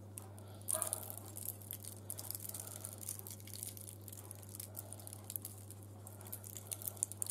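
Coarse salt being sprinkled over raw prawns in a glass baking dish: faint, irregular pattering ticks of grains landing, over a steady low hum.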